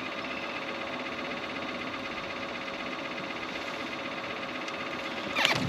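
Boat motor running steadily: a constant hum with a stack of whining overtones. A short burst of rustling handling noise comes near the end.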